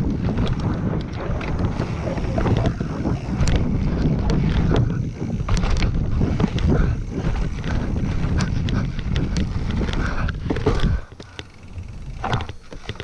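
Wind buffeting a helmet-mounted GoPro and tyres rumbling over a dirt trail as a mountain bike rides downhill, with frequent sharp clicks from the helmet visor knocking against the camera. About eleven seconds in the rumble drops away as the bike slows.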